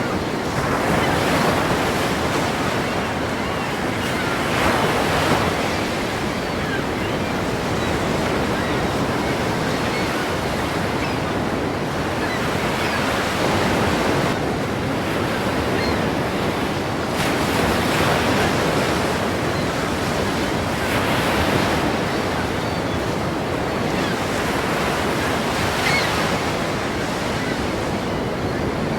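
Ocean waves breaking and washing in continuously, with a swell in the surge every few seconds as each wave comes in.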